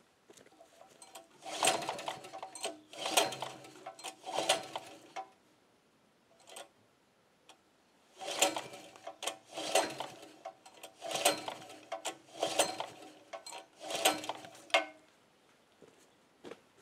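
Recoil pull-starter of a small petrol generator engine running on wood gas, pulled again and again: three quick pulls, a short pause, then five more. Each pull is a brief whirring rattle, and the engine does not catch.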